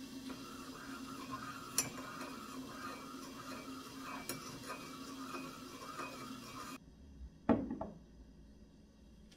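Metal teaspoon stirring tea in a ceramic mug, scraping and clinking against the sides, with two sharper clinks. About seven and a half seconds in, a single thump, the loudest sound, as the mug is set down on a wooden table.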